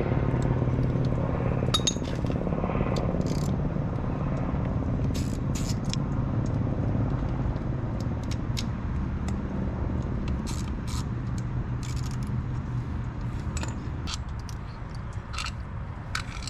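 Scattered light clicks and scrapes of hand tools and small fittings while a plastic side cover is being removed from a motorcycle, over a steady low hum that eases off near the end.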